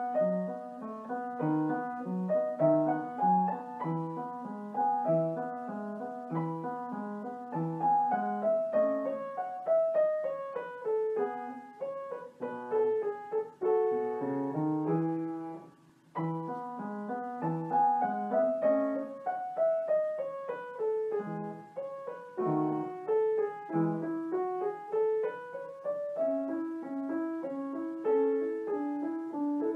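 Background piano music: a flowing melody of quick notes, much of it in descending runs, with a brief break about halfway through.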